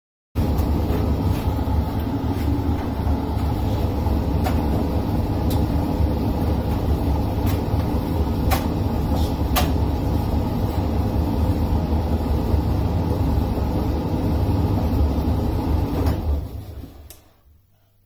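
Hoover tumble dryer running with a steady low hum and a light tick now and then from the turning drum. About two seconds before the end the motor winds down and the drum stops: the pause in a reverse-action cycle before the drum turns the other way.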